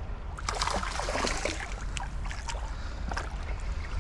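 A hooked flathead splashing at the surface of shallow water as it is drawn in to the rocks, in a run of irregular crackly splashes. A steady low rumble of wind on the microphone runs underneath.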